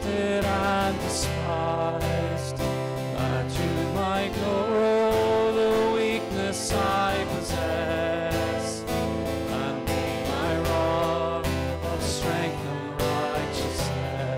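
Live worship song: a woman and a man singing a hymn to an acoustic guitar.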